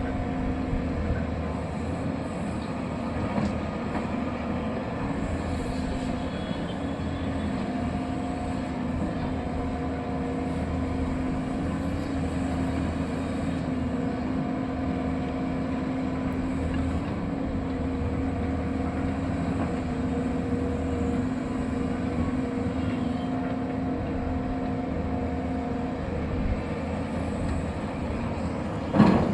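Excavator at work, a steady machine drone with a steady hum, and a sharp knock just before the end.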